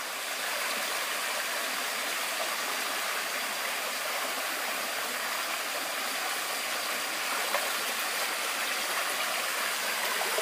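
Shallow rocky stream running steadily over stones, a continuous even rush of water.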